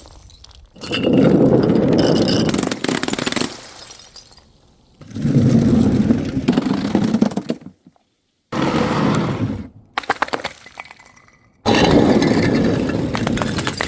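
Glass bottles smashing: four separate crashes a few seconds apart, each followed by broken glass rattling and settling.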